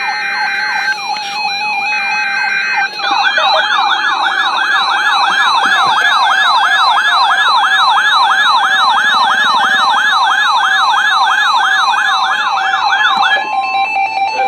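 Emergency alert tones from a NOAA Weather Radio broadcast. First come two short bursts of screechy digital SAME header data. Then a siren-like warbling alarm sweeps up and down about three times a second for roughly ten seconds and cuts off near the end.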